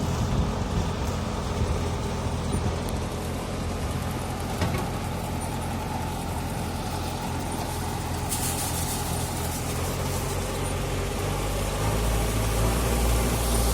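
Daedong DSC62G half-feed combine harvester's diesel engine running steadily. A hiss joins partway through, and the low drone grows louder and deeper near the end.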